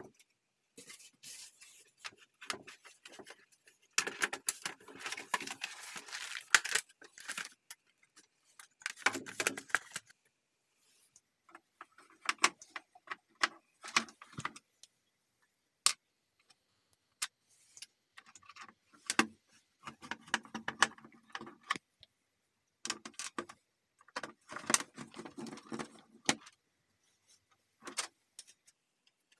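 Plastic keyboard keys clicking and clattering as they are handled during cleaning. Irregular bursts of sharp clicks and rattles come with short pauses between them.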